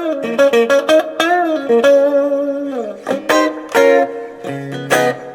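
Fender Stratocaster electric guitar played through a newly built Fender Vibrolux Reverb clone amp on a test run. Quick picked single notes with string bends are followed by a chord struck near the end and left ringing.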